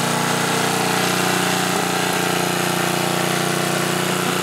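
Homelite generator's 10 hp Tecumseh engine running steadily at constant speed, a continuous even engine hum.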